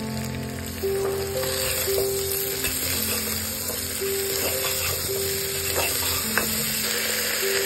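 Potato wedges and dried buffalo meat sizzling in a steel pot as a metal ladle stirs them, with the sizzle growing louder about a second in once the stirring starts and a few light ladle scrapes against the pot.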